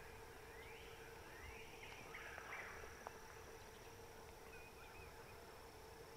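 Very faint woodland dawn ambience: a few distant, short chirping bird calls over a faint steady hum and hiss, with a single small click about three seconds in.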